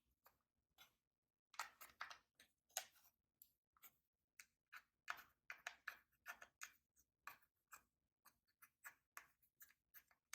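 Slime being squished and kneaded by hand, making quick, irregular clicks and pops that come thicker from about a second and a half in.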